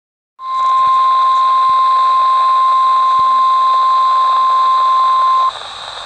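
NOAA Weather Radio 1050 Hz warning alarm tone from a handheld weather radio's small speaker. It is one steady, loud, high tone that starts about half a second in and cuts off abruptly about five and a half seconds in, leaving radio hiss. The tone signals that a flash flood warning broadcast is about to follow.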